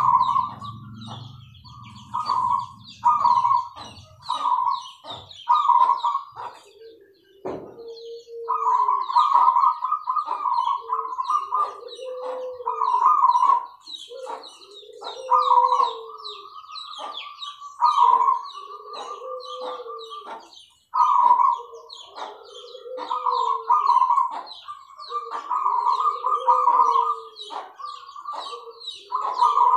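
Zebra doves (perkutut) cooing: phrases of rapid rolling notes, each followed by lower arching coos, repeating about every two seconds. Fainter high chirps of small birds run behind them.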